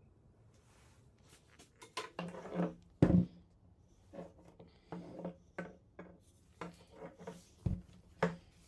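An old electric jigsaw being handled: irregular clicks, knocks and scraping from its metal base plate and plastic housing as it is turned over. A sharp knock comes about three seconds in, and two more near the end.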